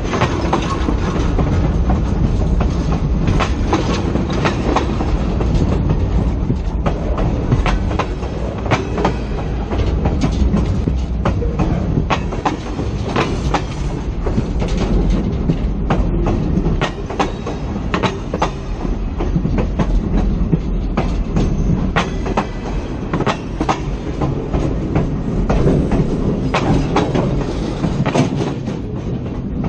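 Train rolling over the rails at very close range: a continuous heavy rumble broken by many sharp, irregular clicks and clanks of wheels on the track.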